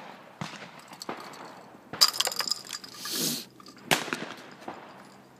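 Snap-pop fireworks cracking on pavement: a string of sharp pops, the loudest about two seconds in and followed by a short clinking rattle.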